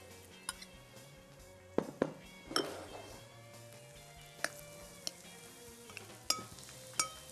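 A metal spoon and a ceramic bowl clinking and scraping against a glass mixing bowl as cottage cheese is tipped in and stirred into ricotta, with about eight short, ringing clinks scattered irregularly. Faint background music runs underneath.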